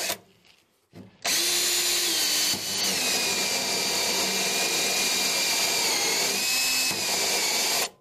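Makita cordless drill running a Blair spot weld cutter, pressed down to cut through a spot weld in the top layer of a sheet-steel car floor pan. After a click, the drill starts about a second in with a steady whine. Its pitch dips briefly twice under load, and it stops abruptly near the end.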